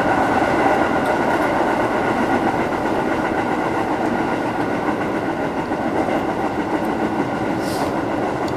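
Electric commuter train running along the track, heard from inside the front of the car: a steady rumble of wheels on rail with a constant hum over it.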